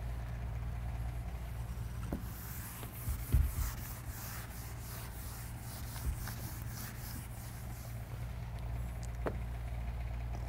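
Steady low room hum, with a run of faint scratchy rubbing strokes in the middle and a dull knock about three seconds in, plus a few light clicks.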